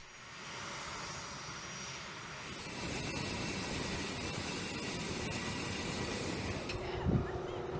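Jet aircraft engine running on the ground: a steady noise with a thin high whine, which gets louder about two and a half seconds in. A steady lower tone joins near the end.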